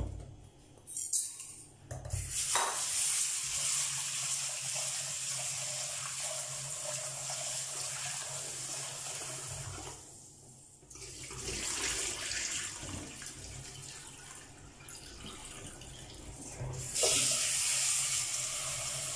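Dry mung beans poured from a glass bowl rattle into a stainless steel pot, then a kitchen tap runs water into the pot in the sink. The water stops about ten seconds in while the beans are swished around in the pot by hand, and the tap runs again near the end.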